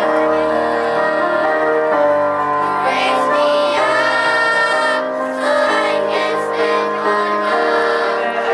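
A song plays: a singing voice over instrumental backing.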